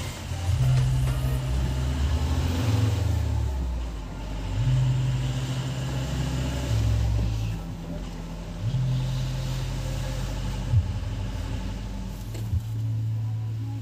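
Engine and road noise of a vehicle heard from inside its cabin while driving, a steady low hum that shifts in pitch now and then. There are a couple of brief knocks near the end.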